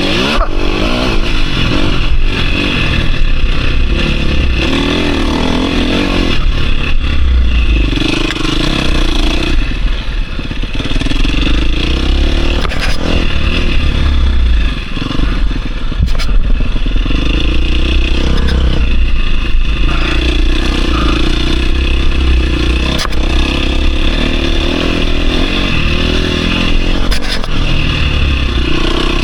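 On-board sound of a 2022 KTM 350 SX-F motocross bike's single-cylinder four-stroke engine being ridden hard, its revs rising and falling over and over as the throttle is worked, with clattering from the bike. The engine briefly drops off about halfway through before picking up again.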